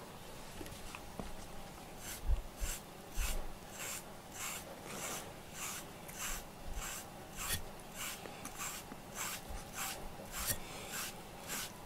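FURminator deshedding brush raking through a cat's coat in quick, even strokes, about two a second, each a short rasp as it pulls out loose undercoat. The strokes start about two seconds in, with a couple of low thumps around then.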